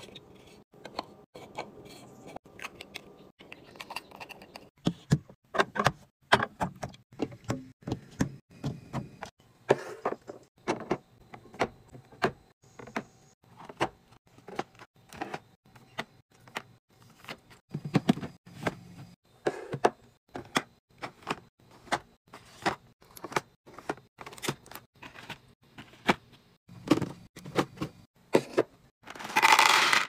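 Hands handling clear plastic containers and packaged food: a run of separate sharp clicks, taps and clacks as caps are fitted onto plastic bottles and items are set into a clear plastic fridge bin. Near the end, small candies rattle as they are poured from a bag into a clear container, the loudest sound.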